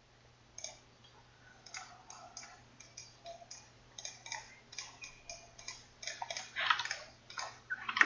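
Clicks of a computer mouse and keyboard, irregular and about two to three a second, with a quicker, louder run of clicks near the end, over a faint steady low hum.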